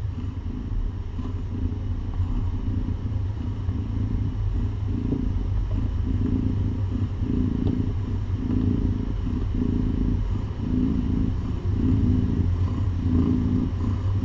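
Mother cat purring while being stroked as her kittens nurse: a steady low purr that swells and fades in a rhythm about once a second.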